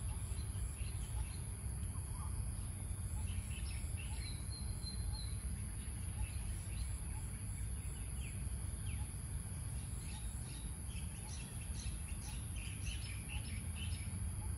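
Outdoor ambience: small birds chirping on and off, more busily near the end, over a steady high-pitched insect drone and a low background rumble.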